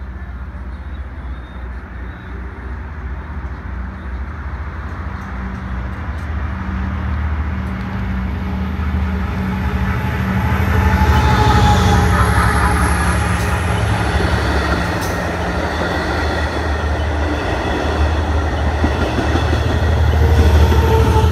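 Long Island Rail Road EMD DE30AC diesel-electric locomotives hauling a push-pull train through the station. The engine rumble builds as the train approaches and is loudest as it passes about ten seconds in. It rises again near the end as the trailing locomotive goes by.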